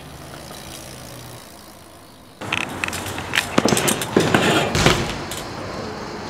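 BMX bikes hitting street handrails and landing on pavement. About two and a half seconds in, after a quieter stretch, a quick run of sharp knocks and metal clatter begins, then a low rumble of rolling tyres.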